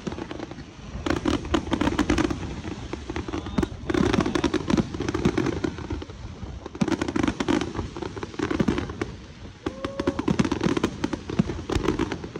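Aerial fireworks bursting overhead in a rapid crackle of many sharp pops. Dense clusters come and go every few seconds, with heavy spells about a second in, around four and seven seconds, and from about nine seconds on.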